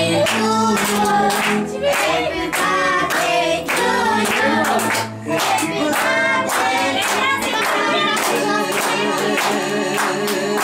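A song with a voice singing over music, and hands clapping along on a steady beat.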